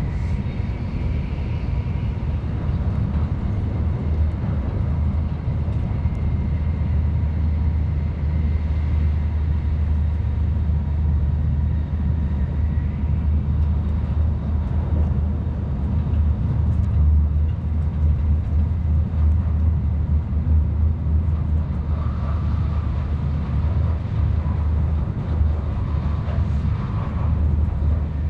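Cabin noise of an N700-series Tokaido Shinkansen Nozomi running at high speed: a steady low rumble, with faint high tones that come and go.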